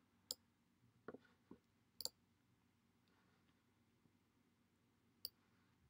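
Computer mouse clicking over near silence: about five short, sharp clicks spaced irregularly, the clearest about two seconds in.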